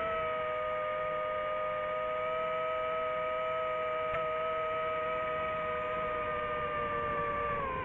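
Quadcopter drone's propellers and motors whining steadily in a hover, several close pitches at once; the pitch dips briefly near the end as the motors ease off.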